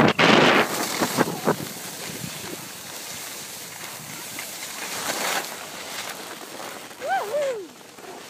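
Wind buffeting the microphone over the hiss and scrape of skis sliding on packed snow, loudest at the start and then steady. About seven seconds in, a short wordless voice wavers up and down.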